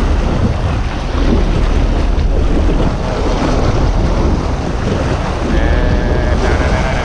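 Wind buffeting the camera microphone over the rush of churning sea water alongside a moving sport-fishing boat.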